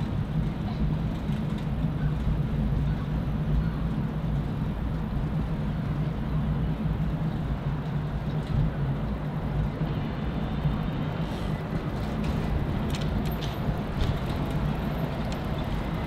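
City street traffic: a steady low hum of vehicle engines under a constant noise of road traffic, with a few faint clicks in the second half.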